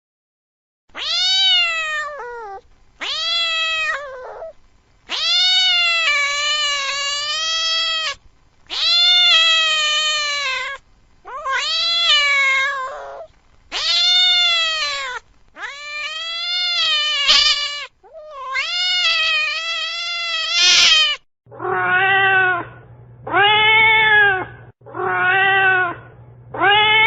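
Domestic cat meowing over and over: a run of about eight drawn-out, high meows, some long and wavering. From about 21 seconds in come four shorter, lower meows with a steady low hum under them.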